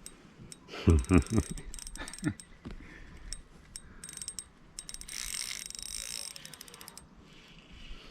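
Fishing reel working during a fight with a hooked fish: rapid ratcheting clicks and a high whirr of the reel, with a few dull knocks about a second in.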